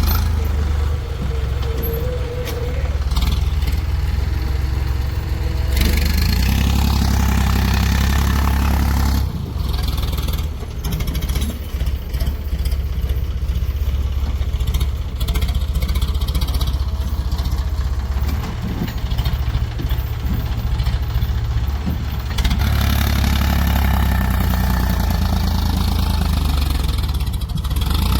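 Diesel engine of a JCB 3DX backhoe loader running under load, its rumble rising as it revs up about six seconds in and again near the end.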